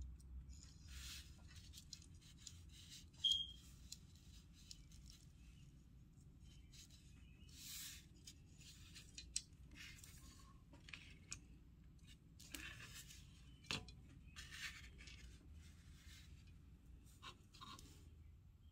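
Faint handling sounds of nylon fishing line being threaded through a plastic bottle-cap feeder with a wire spring and worked between the fingers: soft rustles and scrapes with a few small sharp ticks, the loudest about three seconds in and again near the middle.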